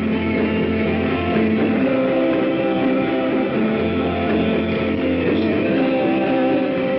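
Rock music led by guitar, dense and steady with long held, droning notes and no singing.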